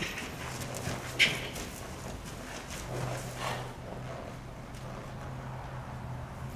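Hoofbeats of a quarter horse gelding on soft dirt arena footing, with a sharp knock about a second in; the hoofbeats grow quieter as the horse slows to a walk.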